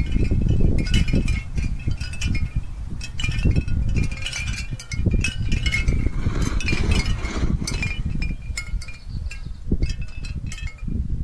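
Many light clinks with short ringing chime-like tones, over a constant low rumble.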